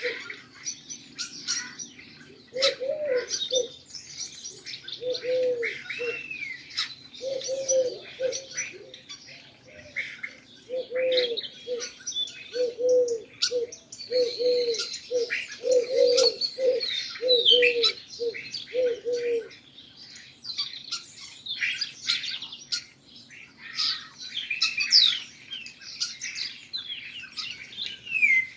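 Pigeons cooing in a string of low repeated notes that stops about two-thirds of the way through, over continuous chirping and twittering of small birds.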